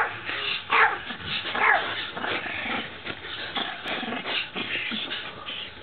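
Small Yorkshire terrier barking at the camera: a run of sharp, high barks, the loudest three in the first two seconds, then quieter ones.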